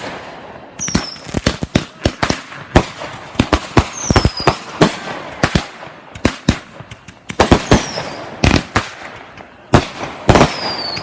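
Consumer aerial fireworks going off in a rapid, irregular string of sharp bangs and pops, with a few short falling whistles among them.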